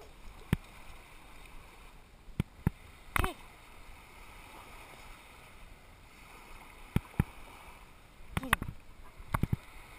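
Small bay waves lapping on a sandy shore. Scattered sharp knocks run through it, with two short sounds falling in pitch, about three seconds in and near the end.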